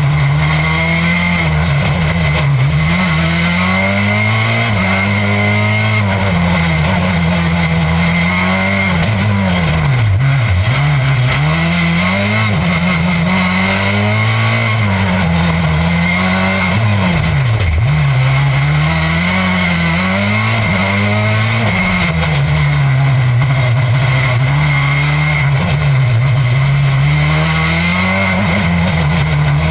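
Citroën C4 WRC rally car's turbocharged four-cylinder engine under hard driving. It revs up and down again and again through the gears and corners, with two sharp drops in revs, one about a third of the way in and one just past halfway. A steady high whine runs under it.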